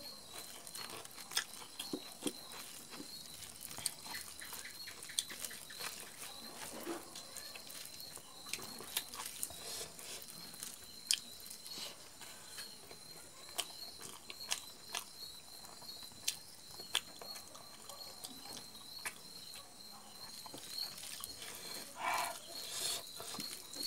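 Close-miked eating sounds: irregular wet chewing clicks and mouth smacks as rice and meat curry are eaten by hand. A faint steady high-pitched whine runs underneath.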